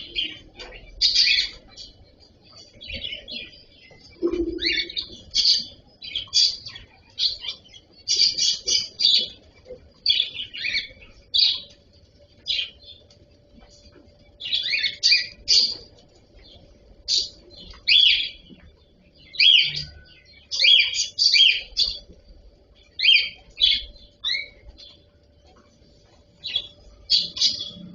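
Cockatiels chirping, short high calls in quick clusters repeated every second or so.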